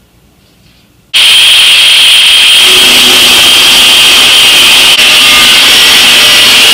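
Angle grinder with a thin cut-off wheel slicing through 16-gauge sheet steel, starting abruptly about a second in and then running very loud and steady with a high, piercing whine.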